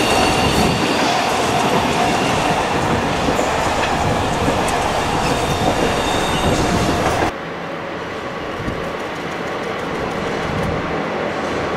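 Container freight wagons rolling past with wheels clattering on the rails and a steady whine over the rumble. About seven seconds in, the sound drops suddenly to a quieter, steady background noise.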